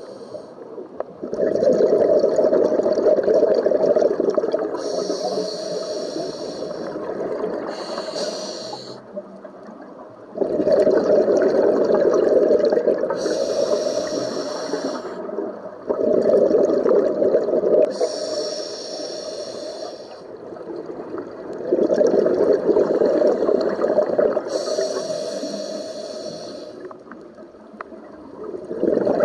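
Scuba diver breathing through a regulator underwater: a faint hiss on each inhale, then a loud bubbling rush of exhaust bubbles on each exhale, repeating about every five to six seconds.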